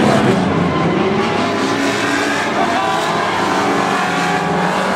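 Several banger-racing cars' engines running and revving together in a steady, loud din.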